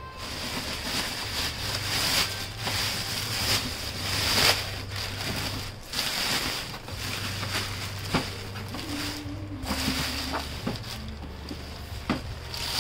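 Clear polyethylene plastic bag crinkling and rustling as it is pulled off a printer, with a few sharp knocks of the plastic printer case being handled.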